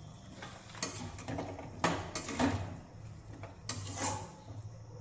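Metal spoon scraping and clinking against an aluminium kadai as potatoes and spice powders are stirred, with several sharp strokes about a second apart.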